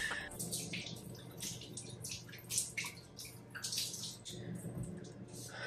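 Water running from a bathroom tap into a sink while hands scoop and splash it onto a face, with irregular splashes throughout.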